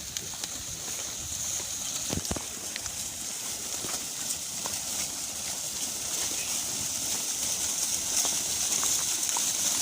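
Outdoor rural ambience: a steady high-pitched hiss that grows slowly louder, with scattered clicks and faint animal sounds.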